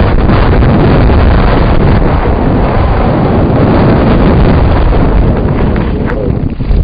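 Heavy wind buffeting on the microphone of a camera carried on a mountain bike riding fast downhill on a dirt track, a loud steady rush.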